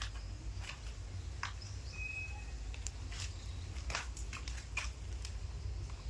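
Scattered short clicks and taps from a pair of macaws moving about, with one brief thin chirp about two seconds in, over a steady low rumble.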